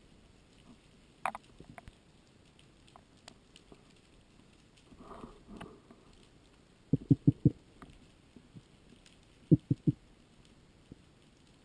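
Underwater sound heard through a camera housing: scattered faint clicks and a soft rushing about five seconds in, then two quick runs of sharp low knocks, four about seven seconds in and three more about two seconds later.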